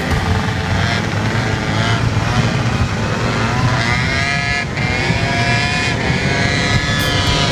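Small motor scooters riding together in a group, their engines running with a steady low rumble of wind on the microphone; engine pitch rises and falls about halfway through and again near the end.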